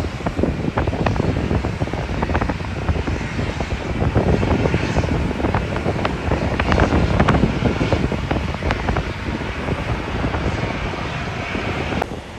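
Jet airliner engines running in a steady, deep rumble, mixed with heavy wind buffeting and crackling on the microphone; the sound swells a little around the middle.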